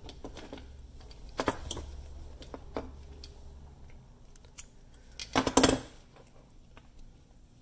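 Small metal hand tools being handled: diagonal side cutters and a sewing awl clicking as the waxed thread is cut, with a brief metallic clatter about five and a half seconds in, the loudest sound.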